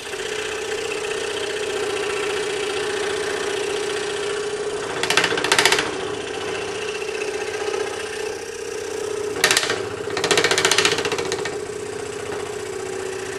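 DeWalt scroll saw running with a steady hum, its number 5 blade cutting thick wood, with short bursts of louder cutting noise about five seconds in and again around nine to eleven seconds.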